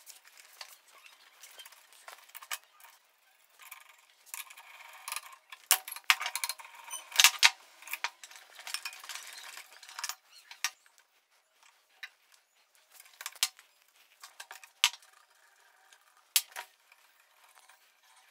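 Hand tools clinking and clicking on a motorcycle engine as a strap-type flywheel holder and puller are fitted to the magneto rotor and worked. Scattered sharp metal clinks with light scraping between, the loudest cluster about seven seconds in.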